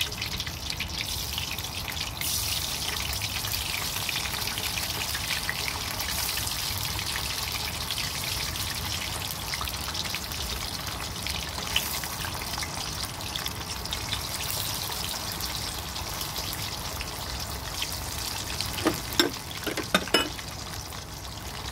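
Sliced potatoes sizzling as they fry in hot oil in a wok, with more slices dropped in by hand. A few sharp clicks near the end.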